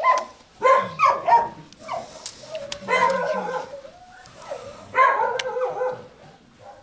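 A dog whining and yowling in a run of short, pitch-bending calls that trail off near the end.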